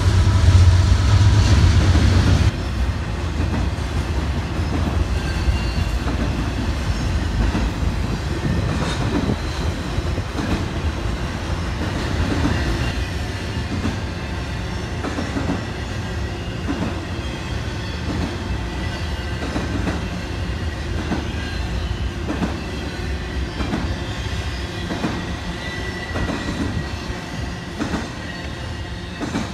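A Norfolk Southern freight train passing. The locomotive's deep diesel rumble drops away about two seconds in. Freight cars then roll by with an even clack of wheels over rail joints, roughly one every second or so, and a faint wheel squeal.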